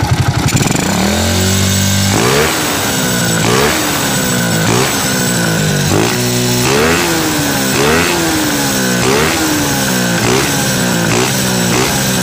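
Small motorcycle engine breathing through an OKO 28 mm flat-slide carburetor, revs dropping early on, then the throttle blipped about once a second so the engine note rises and falls repeatedly.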